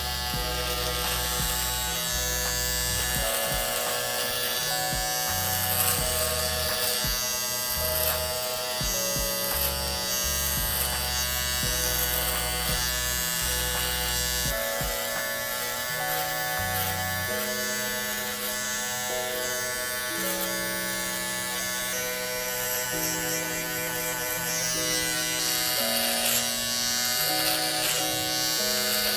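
Zero-gapped T-blade hair trimmer buzzing steadily as it cuts the beard neckline, under background music with a bass line and melody.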